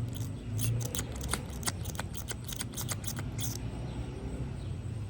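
A plastic lip-gloss tube being handled and opened: a quick run of small clicks and taps in the first three and a half seconds, over a steady low hum.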